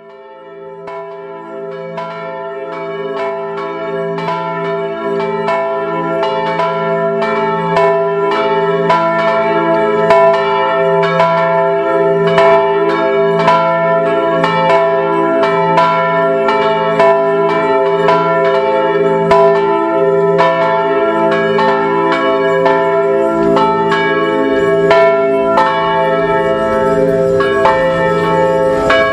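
Church bells ringing in a continuous peal, many overlapping strikes with long ringing tones, fading in over the first several seconds.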